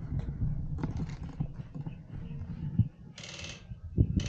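Rustling and low thumps of gear against a body-mounted camera as an airsoft player shifts in a crouch, with a short rattling burst of airsoft rifle fire about three seconds in and a briefer one near the end.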